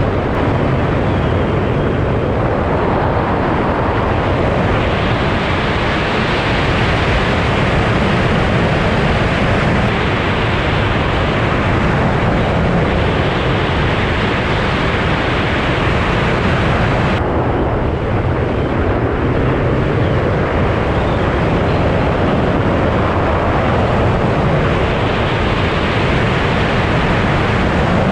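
Strong wind buffeting the microphone: a loud, steady rush across all pitches that swells and eases slightly with the gusts.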